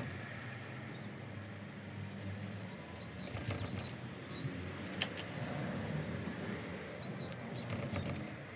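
Small paint roller rolling wet paint along a caravan's lower side panel, a soft uneven rustling, while small birds chirp a few times in the background. A single sharp click about five seconds in.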